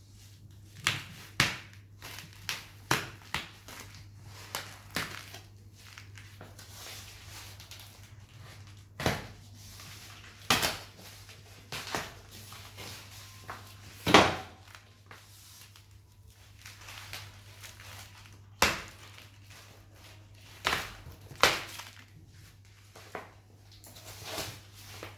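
Cardboard box and packaging being handled and opened: irregular knocks, taps and crinkling, the loudest knock a little past halfway.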